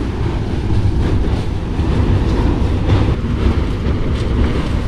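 Storm-force wind from a Mediterranean hurricane blowing in through an open window, buffeting the microphone with a loud, steady rumble. A few light knocks come from the loose window shutter being pulled in.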